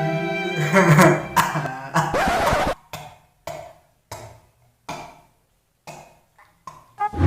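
Background music fades out, then a person coughs in a string of short, separate coughs with silent pauses between them.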